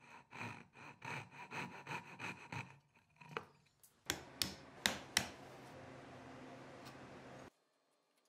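Fret saw cutting dovetail waste out of an oak board in quick, rhythmic strokes, about three or four a second. Then a chisel is struck four times with a mallet, sharp knocks chopping out the rest of the waste.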